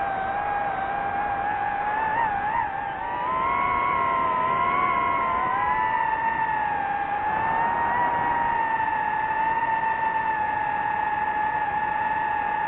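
DJI FPV drone's electric motors and propellers whining in flight. The pitch rises about three seconds in, then eases down and holds steady as the throttle changes.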